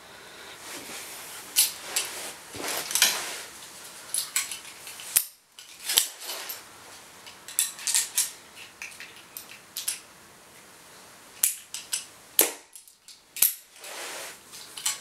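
A 50-pound pistol crossbow being handled, cocked and shot: a series of sharp clicks and snaps a second or a few seconds apart, among light handling noise.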